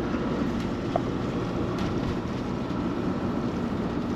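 Camping-car on the move: steady engine and road noise heard from inside the cab, with one short click about a second in.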